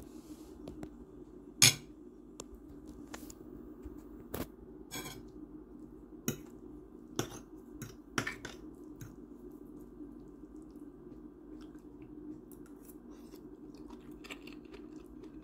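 A metal fork clicking and scraping against a dinner plate while picking through noodles. The clinks are scattered and irregular, the sharpest about a second and a half in, over a low steady hum.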